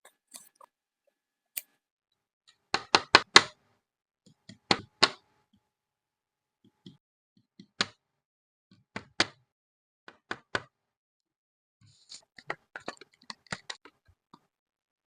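Scrapbooking work: scissors snipping and tools and paper tapping on a desk, heard as short groups of sharp clicks with quiet pauses between them.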